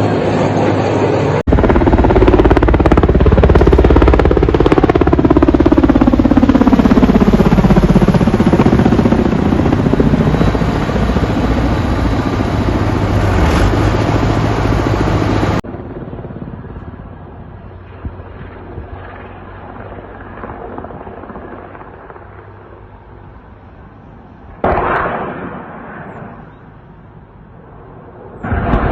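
Military helicopters flying low past: a loud rotor and turbine din with deep rotor beating, its pitch sliding down and back up as an aircraft passes close. After a sudden cut the helicopter sound is much fainter and more distant, with a short louder burst near the end.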